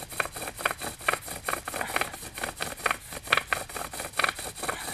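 Bow drill worked at a steady pace: the wooden spindle rasps and squeaks in the hearth board and scallop-shell bearing block with each stroke of the wool-corded bow, about four strokes a second. It is a friction-fire attempt that has not yet made an ember.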